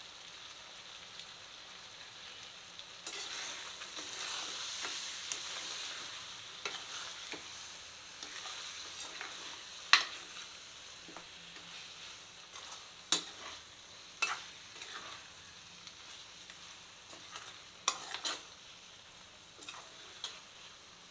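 Mutton pieces sizzling in a frying pan as a spatula stirs them. The sizzle swells about three seconds in, and the spatula knocks sharply against the pan several times, loudest about ten seconds in.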